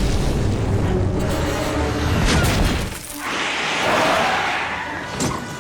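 Cartoon action sound effects over dramatic music: a heavy rumbling boom that dies away about three seconds in, then a hissing whoosh that swells and fades, and a sharp hit near the end.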